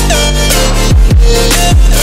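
Electronic background music: deep bass hits that slide down in pitch, several in quick succession, over held synth chords.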